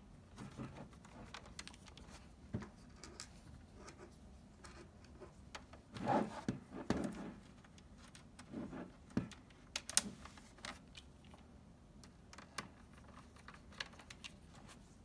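Small precision screwdriver driving screws into a PlayStation 4's plastic case: faint scattered clicks and short scrapes of the bit and screws. Louder handling knocks of the plastic shell come about six seconds in and again near nine seconds, with a sharp click at about ten seconds.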